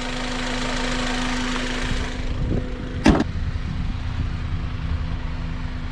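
Acura RSX Type-S's K20Z1 four-cylinder engine idling with a steady hum, and a single sharp knock about three seconds in.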